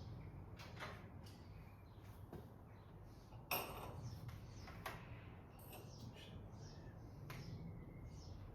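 Packaging being handled: scattered rustles and sharp crinkling clicks, the loudest about three and a half seconds in, over a low steady hum.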